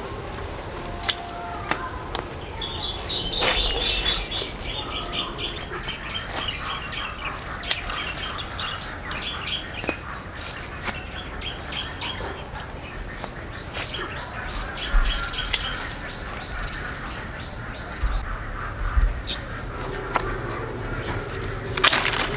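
Small birds chirping in quick twittering runs of short, high notes for most of the stretch, with scattered sharp clicks and knocks and a steady high hiss behind.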